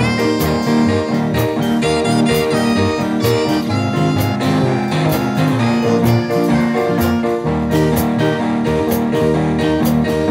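A live ska band plays with drum kit, electric bass, piano, guitar and saxophones, the cymbal marking an even offbeat about twice a second. A saxophone solo gives way to an electric bass solo a little past halfway, where the low bass grows stronger.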